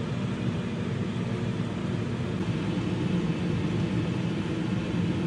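Steady whirring rumble with a low hum from the kitchen range hood fan running over a gas stove while a pan of chili simmers and is stirred. The noise stops abruptly just after the end.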